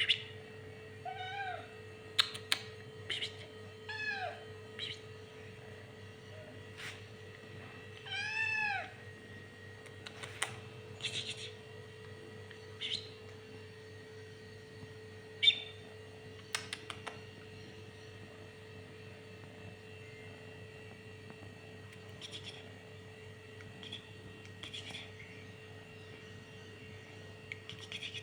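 A domestic cat meowing: three short meows in the first nine seconds, the last one the longest. Sharp clicks and knocks come and go throughout, the loudest about fifteen seconds in, over a steady electrical hum.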